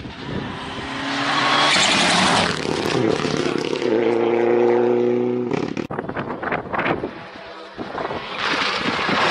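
Rally car at full speed on a tarmac stage: a loud rush of engine and tyre noise, the engine held at high revs for a second or two, then a quick run of sharp cracks and pops, and a second loud rush near the end.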